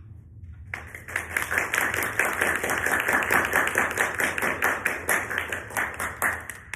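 Audience applauding. It starts about a second in and stops shortly before the end.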